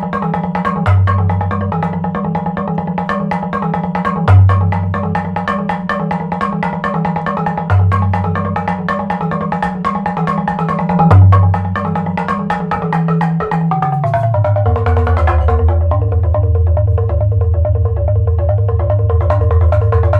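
Minimal live percussion music: a fast, even pattern of pitched mallet-percussion strikes, with a deep low note sounding about every three and a half seconds. About fourteen seconds in, the pitch slides down into a steady low drone and the pattern changes.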